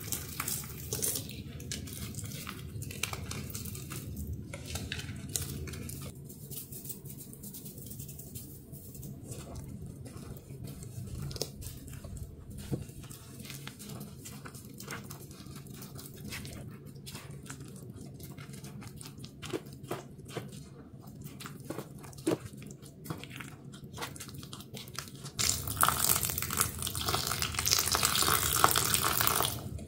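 Powdery reform fizzing in water, a steady crackle of many tiny pops. Near the end a louder rough hissing rises for about four seconds, then stops suddenly.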